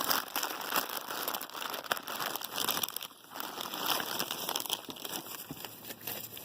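Packaging wrapping being handled and pulled open by hand, crinkling and crackling continuously with a brief lull about three seconds in.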